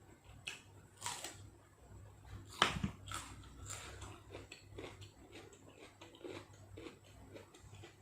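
A person eating nam tok neua beef salad with fresh vegetables close to the microphone: irregular bites, crunches and wet chewing. The loudest crunch comes about two and a half seconds in.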